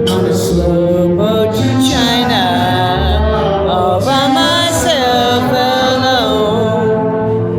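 Music with a singing voice over instrumental accompaniment, with steady bass notes underneath.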